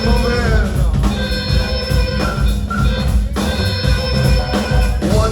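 Live rock band playing an instrumental stretch of a song: sustained organ-like keyboard tones over bass and drums.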